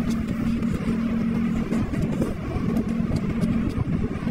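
A steady low hum with a held low tone, like a running motor, and faint light clicks above it.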